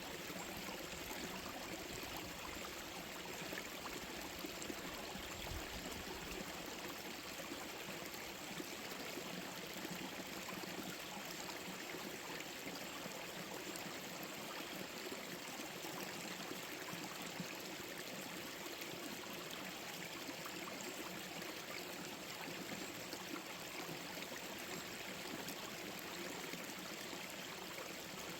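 Small forest stream flowing over rocks, a steady rush of water with a gurgle.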